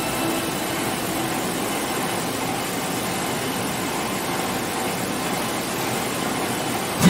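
Maize flour milling plant machinery running: a steady, even mechanical whir and rush of noise from the motors, mill and conveyors.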